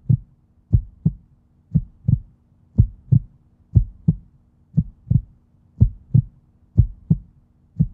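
Heartbeat sound effect: low double thumps, lub-dub, repeating about once a second over a faint steady low hum.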